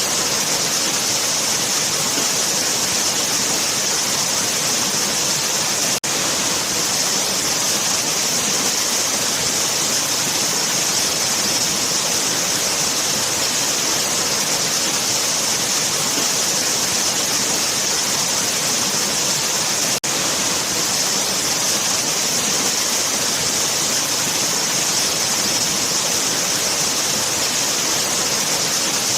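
Waterfall: a steady, dense rush of falling water, with a bright hiss riding high above it. Twice the sound drops out for a split second.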